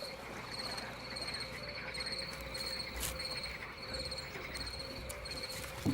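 Crickets chirping at night in short, high trills, about two a second, over a faint steady low hum.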